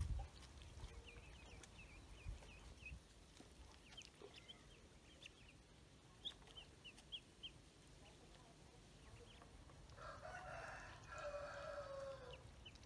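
Ducklings peeping: many short, high chirps scattered throughout. About ten seconds in, a louder, drawn-out call with several pitches rises over them for a couple of seconds and falls away at its end.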